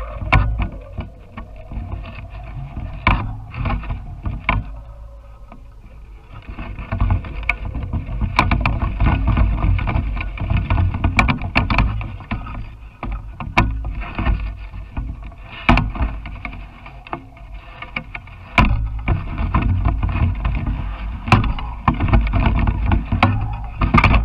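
Wind buffeting the microphone of a GoPro hanging under a kite, a gusting low rumble that eases for a couple of seconds around the fifth second, with scattered sharp clicks and knocks from the camera rig.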